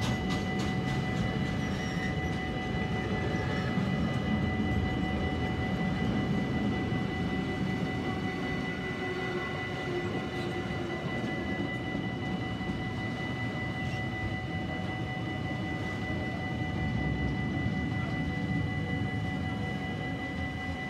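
Freight train wagons rolling past: covered sliding-wall wagons and then tank wagons, making a steady rumble of wheels on rail with a steady high ringing tone above it.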